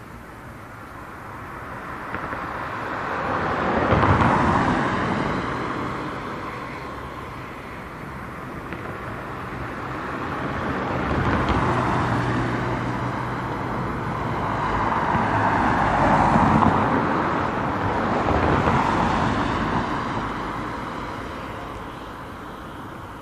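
Road traffic: several cars passing close by one after another, each one swelling up and fading away, the loudest about four seconds in and again around the middle and toward the end.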